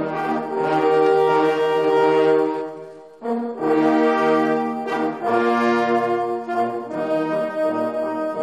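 Brass horns playing a slow tune of long held notes, breaking off briefly about three seconds in before starting again.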